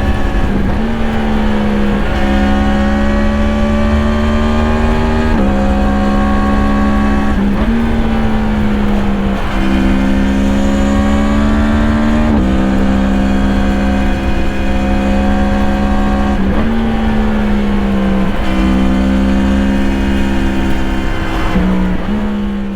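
2017 Yamaha MT-10's crossplane inline-four engine, breathing through an Akrapovič slip-on exhaust, running hard under riding. The engine note holds steady for a few seconds at a time, then drops or jumps abruptly about eight times as the rider works the throttle and gears.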